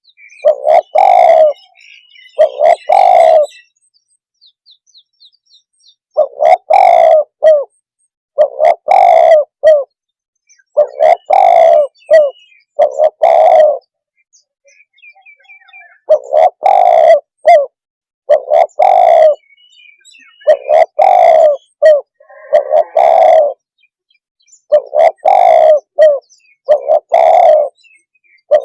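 Spotted dove (tekukur) cooing loudly, repeating a short phrase of two or three low coos over and over with brief pauses between phrases and a couple of longer pauses. Faint small-bird chirps sound in some of the gaps.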